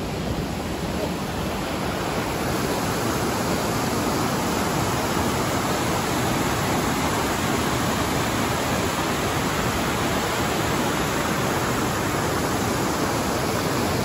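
White water of a fast Alpine river rushing over boulders in a narrow rock gorge: a steady, unbroken rush, a little louder after the first two seconds.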